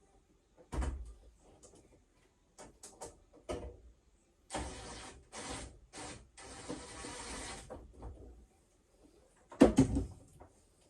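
Hands-on repair handling noises: a few clicks and knocks, then several seconds of rustling or scraping in short stretches, and one loud knock about ten seconds in.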